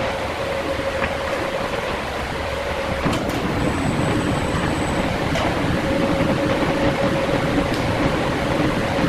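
Woodworking plant machinery running steadily with a constant motor hum. About three seconds in, a second, lower tone joins and the sound gets a little louder, with a few sharp clicks.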